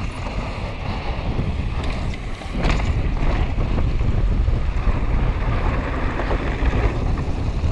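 Wind buffeting a helmet-mounted action camera's microphone during a fast mountain-bike descent, a steady low rumble mixed with tyre and trail noise from the bike. A brief knock about two and a half seconds in.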